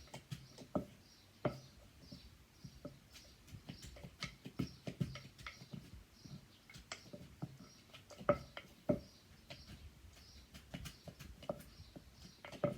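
Pestle knocking irregularly in a mortar, a few knocks a second, bruising and mixing shredded green papaya into the som tum.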